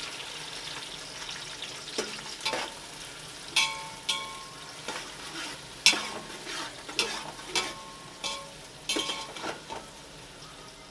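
Sliced onions sizzling in hot oil in a pot, frying toward golden, while a metal spoon stirs them. The spoon knocks and clinks against the pot a dozen or so times, each knock leaving a brief ring.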